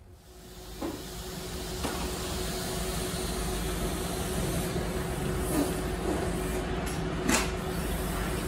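A machine running steadily, a low hum and hiss with a faint held tone, building up within the first second. A few light knocks sound over it, the clearest about seven seconds in.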